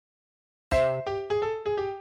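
Background music: after a brief silence, a keyboard sounds a chord and then a short melody of notes, about three a second.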